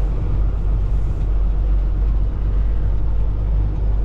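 Semi truck's diesel engine running as the truck creeps along at low speed: a steady low rumble with road and cab noise over it.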